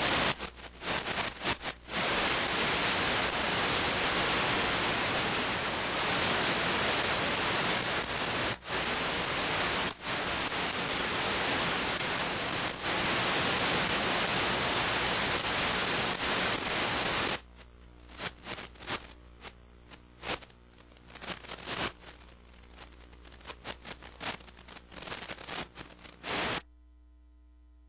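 Loud, even electronic static hiss, as from a dead or noisy audio feed. About two-thirds of the way through it breaks up into irregular crackles, then cuts off to a faint steady hum near the end.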